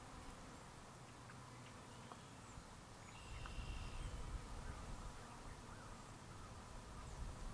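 Quiet farmyard ambience: a few faint, short bird calls over a steady hiss, with a low rumble that grows louder about three seconds in.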